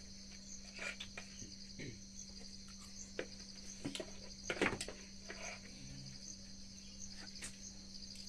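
Insects chirring in a steady, rapidly pulsing high trill under a steady low hum, with scattered sharp clicks and knocks, the loudest a little past halfway.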